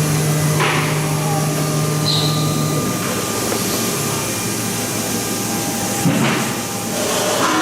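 CNC cutting machine running as it cuts EVA foam, a loud, steady mechanical noise. A low hum in it stops about three seconds in, and there are short knocks near the start and again near the end.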